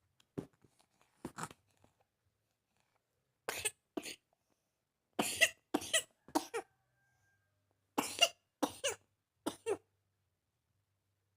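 Repeated short coughs in bouts of two or three, the loudest bouts about five and eight seconds in: a recurring cough.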